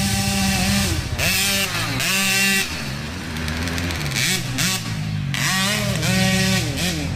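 Small youth dirt bike's engine revving, its pitch climbing and dropping several times as the rider works the throttle and gears.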